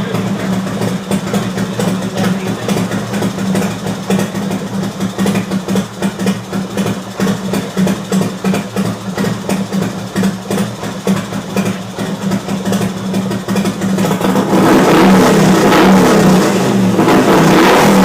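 Harley-Davidson V-twin motorcycle engine idling with an uneven, pulsing beat. About three quarters of the way in, it is revved up and stays louder to the end.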